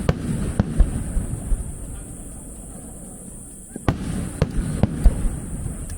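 Aerial fireworks shells bursting, sharp bangs each followed by a low rumbling echo, with a group of bursts near the start and another about four seconds in.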